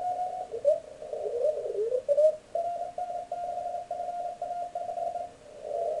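Elecraft K3 transceiver receiving CW through a narrow filter as the VFO is tuned: Morse tones slide in pitch at first, then settle into a station's Morse code keying at one steady pitch for a few seconds. Near the end only band noise fills the narrow passband.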